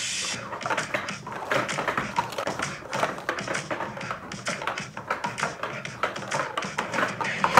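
Rapid, irregular clacking and tapping of plastic Speed Stacks sport-stacking cups as they are stacked up into pyramids and swept back down on a table.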